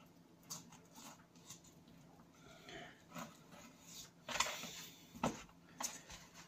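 A blunt knife sawing and scraping through dogfish flesh along the backbone on a plastic chopping board: scattered soft scrapes and knocks, with a few sharper, louder ones between about four and six seconds in.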